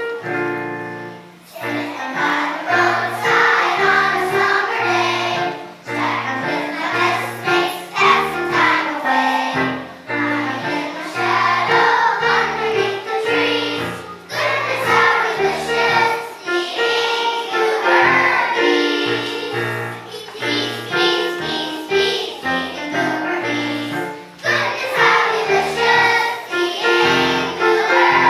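Children's choir singing a song in unison phrases, accompanied by a keyboard playing held bass notes beneath.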